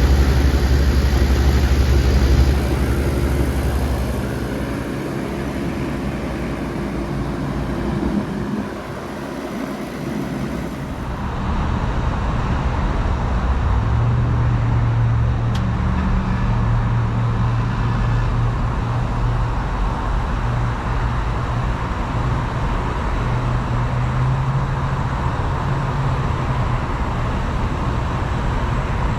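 Heat pumps running in heat mode. First a 2016 Bard wall-mount unit, whose strong low hum and high whine drop away a few seconds in. Then, about 11 seconds in, a 2009 Carrier Performance Series outdoor unit with its fan running, and a deep compressor hum that comes in a few seconds later as it starts up.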